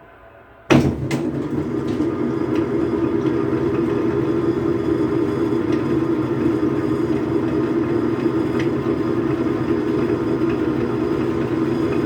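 Logan metal lathe switched on with a sharp clack a little under a second in, its motor and drive then running with a steady hum.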